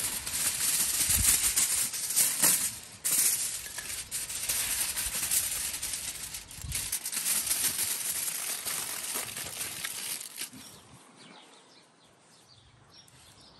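Aluminium foil being torn off the roll and crinkled as it is wrapped around a motorcycle exhaust pipe: a loud, dense crackling rustle that dies down over the last few seconds.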